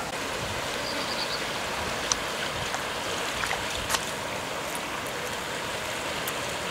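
Floodwater rushing steadily, a continuous noise of flowing water, with two brief clicks about two and four seconds in.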